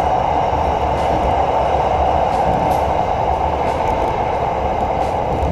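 SRT Red Line electric commuter train running, heard from inside the carriage as a steady rumble and whooshing noise.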